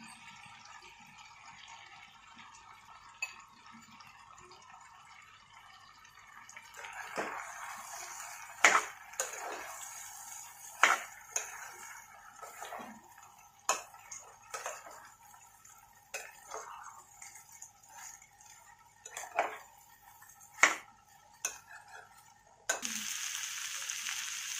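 Spoon stirring basmati rice into sautéed vegetables in an oiled pan, the stage where the dry rice is fried before water goes in. It scrapes, with sharp clinks and knocks against the pan, over a faint sizzle. Near the end a louder steady sizzle of frying comes in suddenly.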